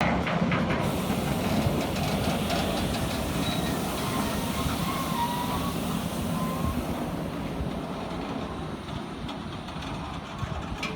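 Freight train of car-carrier wagons rolling past at close range: a steady rumble of wheels on rail with a few clicks at the start and a faint thin wheel squeal near the middle, easing off slightly in the second half.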